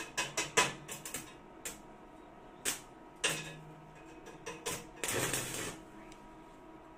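Small steel parts clicking and clattering on a steel workbench: a quick run of sharp clicks, a few single clicks, and a denser rattle lasting under a second about five seconds in.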